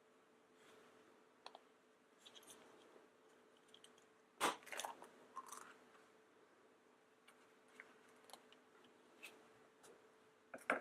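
Quiet clicks, crinkles and crackles of a confetti-filled plastic surprise egg and its contents being handled and opened, with a louder crackle about four and a half seconds in.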